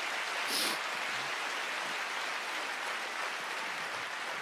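Large congregation applauding in a big auditorium, a steady wash of clapping that fades out just after.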